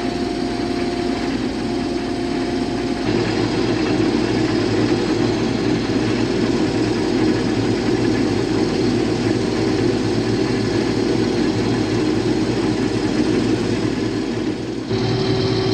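Case IH combine running steadily under load while harvesting wheat: a constant engine and machinery hum, with an abrupt shift in the sound about three seconds in.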